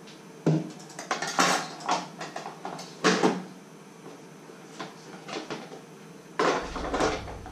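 Kitchen clatter: several bursts of knocks and rattles as things are handled and moved about, over a steady low electrical hum. A low rumble comes in near the end.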